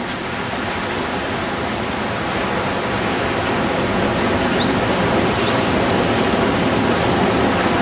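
Steady rush of ocean surf washing up a sandy beach, growing slightly louder over the stretch.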